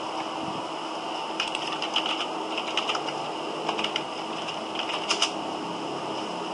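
Computer keyboard typing: irregular clusters of quick key clicks for several seconds, stopping about a second before the end, over a steady background hum.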